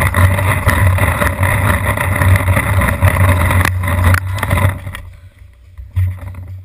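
Wind rumble and jostling noise on a GoPro's microphone as a player runs with it. It drops away abruptly about five seconds in when he stops and crouches, with one thump near the end.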